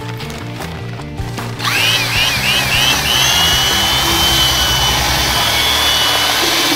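An electric power tool working wood starts about a second and a half in. Its high whine dips in pitch five times as it takes load, then runs steadily at one pitch, over background music.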